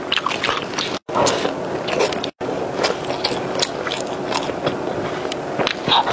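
Close-miked eating sounds: a person chewing and biting into a large burger, with many short, sharp crackles and crunches. The sound drops out twice, very briefly.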